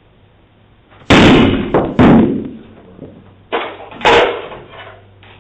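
Someone pounding hard on a door: four loud bangs, two about a second apart, then two more about a second and a half later.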